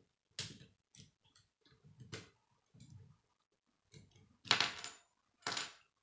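K'nex plastic rods and connectors clicking and knocking as they are handled and fitted onto the model car's front axle: irregular clicks, with two louder clicks near the end.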